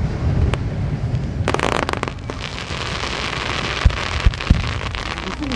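Fireworks going off: a cluster of sharp bangs about a second and a half in, then a dense crackle of bursting stars, with three sharp low thumps near the end.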